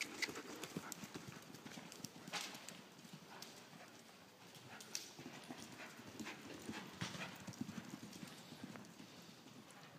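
Hoofbeats of a cantering Welsh sport pony on loose indoor-arena footing: an uneven run of soft, muffled thuds with a few sharper clicks now and then.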